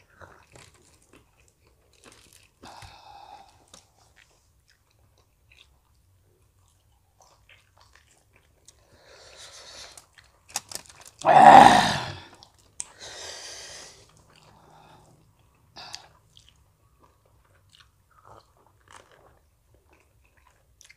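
Close-up eating sounds: soft chewing, biting and small wet clicks of people eating fried chicken and noodles. Around halfway through comes one loud breathy burst from a person, about a second long, with softer breaths just before and after it.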